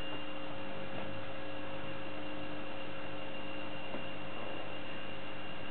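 Steady electrical hum under an even hiss, holding a few constant tones without change.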